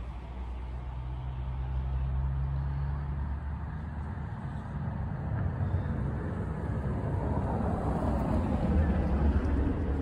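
A car driving along a snow-covered street, its engine and tyre noise growing louder in the second half and peaking shortly before the end, over a steady low rumble.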